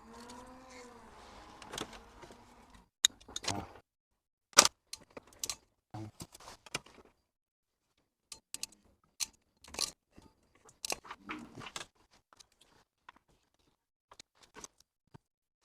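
Wire cutters snipping and trimming corroded speaker wire, a series of short sharp clicks and snaps with small handling and rustling noises in between, the loudest snip about four and a half seconds in. A faint wavering tone sounds during the first three seconds.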